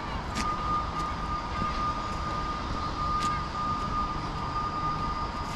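A machine's steady high-pitched whine, holding one pitch from just after the start, over a constant low rumble of outdoor background noise.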